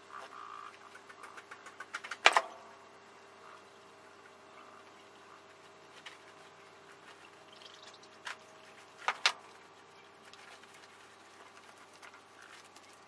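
Guinea pigs moving about in hay and wood-shavings bedding, sped up fourfold: quick light pattering and rustling with a few sharp knocks, one just over two seconds in and two close together about two-thirds of the way through, over a faint steady hum.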